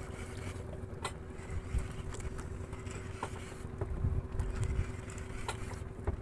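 An engine running steadily: a low drone with a constant hum over it. Short faint clicks and knocks come and go over it.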